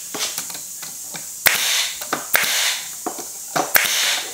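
Brad nailer driving 1-inch brad nails into a plywood box frame: three sharp shots about a second apart, each followed by a short hiss, with fainter clicks in between over a steady hiss.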